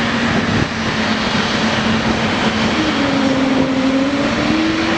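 Airbus A340's four jet engines running loud during takeoff: a steady broad roar with a humming tone that dips and then rises in pitch about three seconds in.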